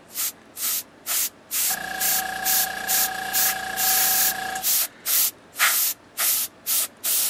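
Copic airbrush spraying marker ink in short hisses, about two a second, as the air is pulsed on and off. A small airbrush compressor comes on with a steady hum about two seconds in and cuts off again after about three seconds.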